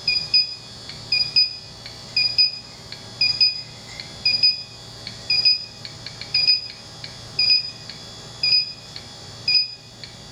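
Electronic refrigerant leak detector (D-TEK) beeping at its steady idle rate, about a pair of short high beeps a second, with a brief flurry of faster ticks about two-thirds of the way through. The rate never climbs to a continuous alarm, the sign that it is not detecting the R-410A leak it is held at.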